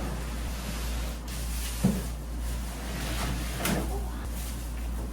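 Two short, light knocks, about two seconds in and again near four seconds, like things being handled or a cupboard door moved, over a steady low hum.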